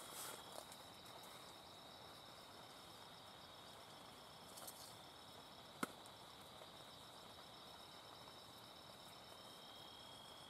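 Faint, steady high-pitched night-insect chorus of crickets, with two brief soft rustles and one sharp click a little before halfway through.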